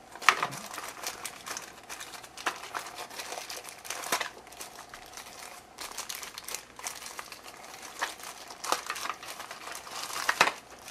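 Thin clear plastic bag crinkling and crackling in irregular bursts as a small kit is pulled out of it, with louder rustles just after the start and again about ten seconds in.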